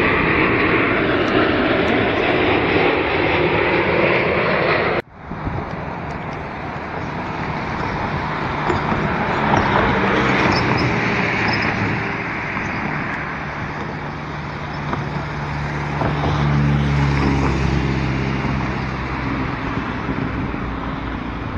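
A Boeing 787 jet airliner passing low on approach with its landing gear down, its engine noise ending abruptly about five seconds in. Then steady road-traffic noise, with a low vehicle rumble swelling and fading about two-thirds of the way through.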